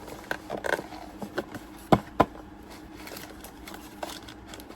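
Packaging being handled as a box is closed up: scattered light taps and scrapes, with two sharp knocks about two seconds in.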